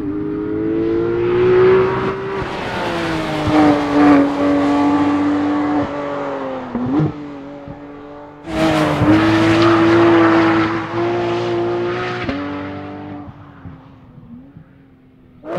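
2018 Porsche 911 GT3's naturally aspirated four-litre flat-six running hard at high revs on a race track, its pitch rising and dipping through the corners. The sound jumps abruptly louder about halfway through, then fades near the end as the car draws away.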